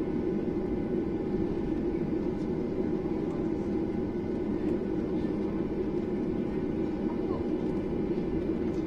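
Cabin noise of a Boeing 737-800 taxiing, heard from inside at a window seat: its CFM56-7B turbofans run at low power, a steady engine noise with faint constant whine tones above it.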